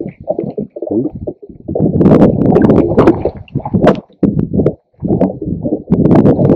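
Boat moving on open water, heard as loud, uneven low rumbling and buffeting broken by several sharp slaps.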